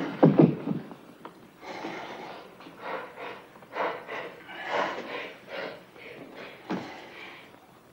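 A man panting heavily after a struggle, with gasping breaths about once a second that fade away, after a strained grunt at the start.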